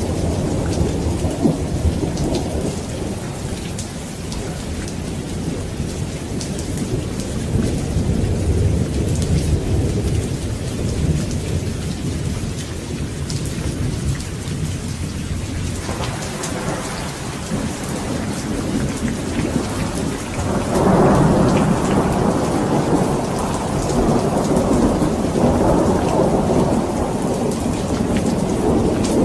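Steady rain falling with rolling thunder rumbling underneath; the rumble swells about halfway through and grows loudest around three-quarters of the way in.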